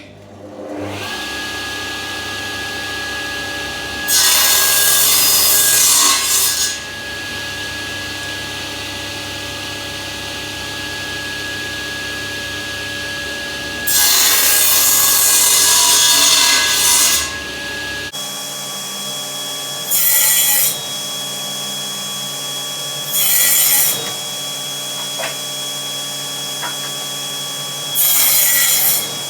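Power saw starting up and running steadily, with louder stretches where the blade cuts through wood: two long cuts of about three seconds each, then three short ones.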